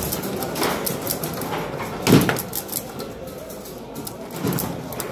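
Foosball table in play: sharp clacks of the ball striking the figures and rods knocking in the table, with a heavier thud about two seconds in.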